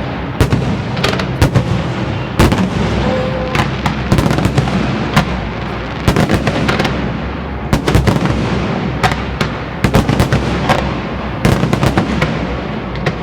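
Fireworks display: many sharp shell bursts and bangs, several a second in irregular clusters, over a constant rumble of further explosions and their echoes.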